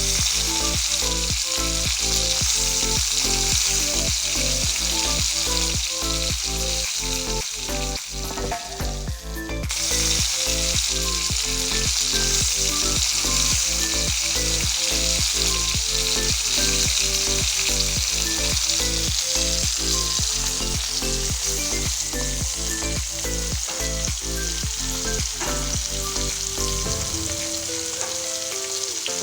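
A whole kalanji (Asian seabass), coated in a turmeric, chilli and pepper paste, sizzling as it shallow-fries in hot oil in a kadai. The sizzle is steady, with a short dip about eight seconds in before it picks up again.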